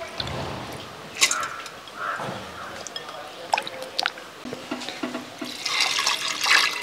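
Water being poured into a stainless-steel pressure cooker over toor dal, splashing most heavily near the end. There are a few sharp clicks before the pouring.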